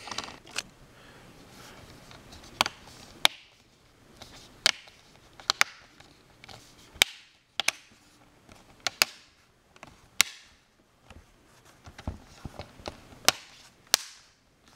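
Plastic clips of an ASUS 1025c netbook's screen bezel snapping into place on the lid as it is pressed on by hand: a dozen or so sharp clicks, irregularly spaced.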